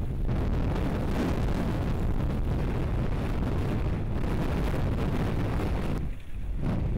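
Strong sandstorm wind buffeting the microphone: a continuous heavy rumble of gusts. It eases briefly about six seconds in, then picks up again.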